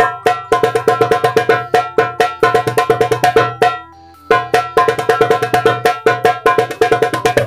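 Darbuka with a Remo drumhead played by hand in fast rolls and ornamented strokes, the head ringing with a clear pitch. The playing comes in two quick runs, with a short break about four seconds in.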